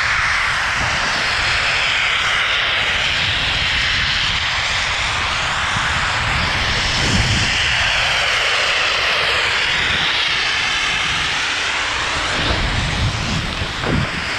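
Snowmaking guns running with a steady jet-like roar and hiss. The sound sweeps slowly as the skier moves past them. Skis scrape the snow briefly, about halfway through and again near the end.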